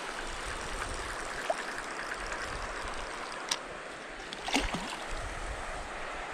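Small mountain trout creek running low over rocks, a steady rush of water, with a couple of short clicks about halfway through.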